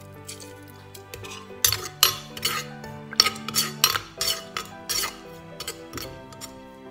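A metal spoon stirring in a clay mortar, clinking and scraping against its sides in a run of sharp strikes from about one and a half seconds in to near the end, over background music.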